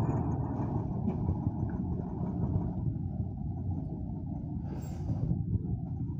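Mercedes-Benz OM366 straight-six diesel in a 917 truck running steadily with a low rumble, freshly rebuilt with new piston rings and bearings and being run in. A short hiss comes about five seconds in.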